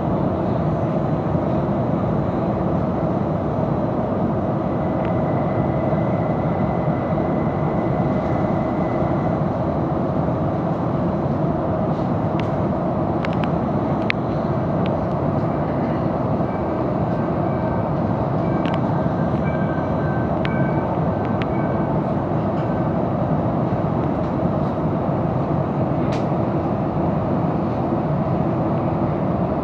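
Commuter train heard from inside the carriage while running along the line: a steady rumble of wheels on rail, with a few scattered clicks and faint high tones.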